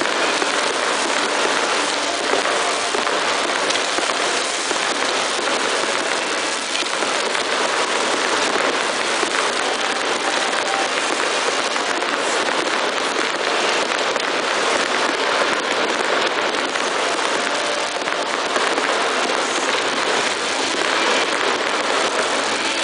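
Row of pyrotechnic ground fountains (gerbs) spraying, a steady dense hiss that holds at one level throughout.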